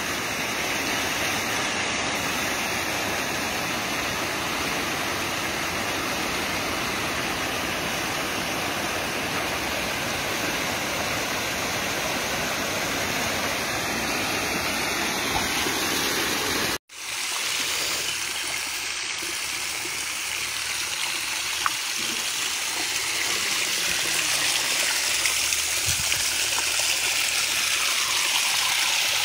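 Groundwater gushing under its own pressure from a well's pipe outlets and splashing onto the ground, forced up after heavy rains. It is a steady, dense rush; after a short break about 17 seconds in, it sounds thinner and hissier as water pours over the well head.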